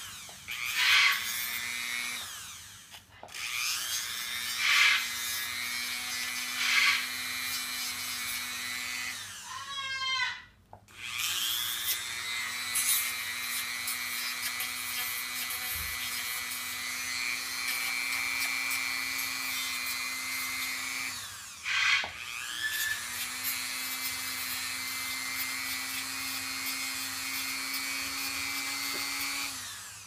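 Dremel rotary tool running at a steady pitch, grinding a cockatoo's toenail, with short louder bursts as the bit bites the nail. The motor stops three times and speeds back up each time, and stops again just before the end.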